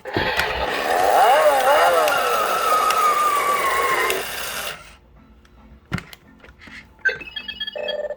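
Built-in electronic sound effect of a Thinkway Toys U-Command Batmobile played through its small speaker: a loud, revving engine sound with a whine that wavers and then falls slowly, lasting about five seconds and cutting off abruptly. A click follows, then a few short tones near the end.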